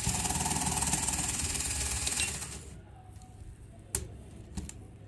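Motor-driven Lego Technic V16 engine model and gearbox, its plastic pistons and gears clattering rapidly. The clatter fades and stops about two and a half seconds in, followed by a few light clicks.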